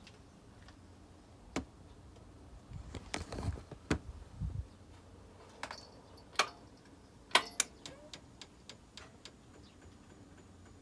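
Irregular metallic clicks, clinks and light knocks of hand tools and small metal parts being handled during repair work, with the sharpest click about seven seconds in.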